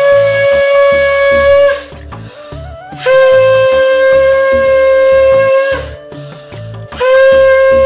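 Conch shell (shankha) blown in long, steady blasts on one pitch. The first ends about two seconds in, a second lasts nearly three seconds in the middle, and a third starts near the end.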